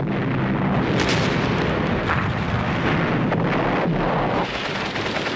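Battle sound of artillery fire and explosions, a dense continuous din with a few sharper blasts standing out, the first about a second in.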